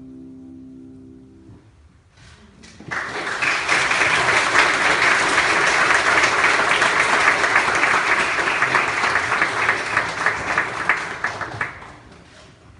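The last held chord of the music fades out, then the congregation in a church applauds for about nine seconds, starting about three seconds in and dying away near the end.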